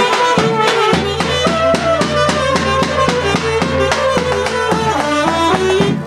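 A folk band playing a lively tune on accordion and trumpets, with a big bass drum keeping a steady beat.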